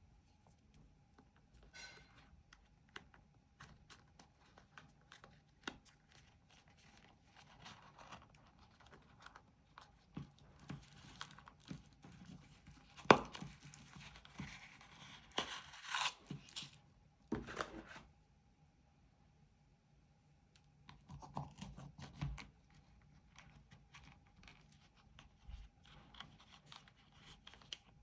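Packaging being torn open and handled: tearing and crinkling with scattered clicks and taps. The rustling is busiest in the middle, with one sharp click about halfway through and a brief lull a little later.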